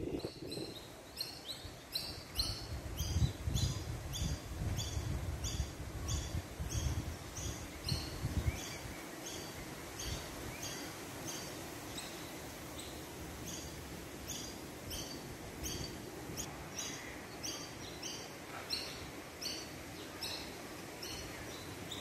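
A small bird chirping over and over, short high notes about twice a second in a steady run. A low rumble of wind on the microphone underlies the first several seconds.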